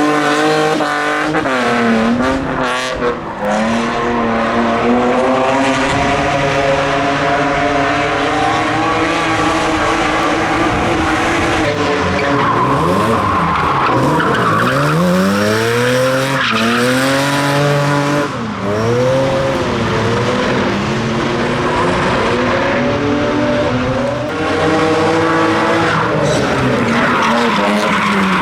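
Drift car's engine revving hard, its pitch rising and falling again and again as it slides, with tyres squealing on the tarmac.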